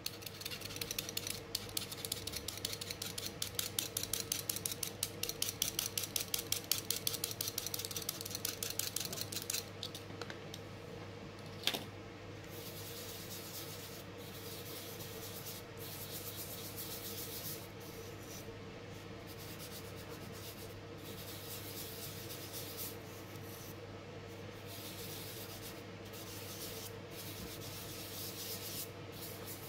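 A craft knife scraping a soft pastel stick in a quick, rhythmic run of strokes, several a second for about ten seconds, shaving powder onto the paper. After a single click, fingertips rub the pastel powder into the paper with a steady soft friction that pauses now and then.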